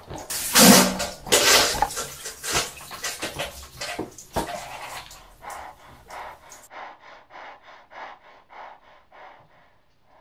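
A man's loud, strained grunts and breaths, then a run of quick, even panting breaths, about three a second, that fade out near the end.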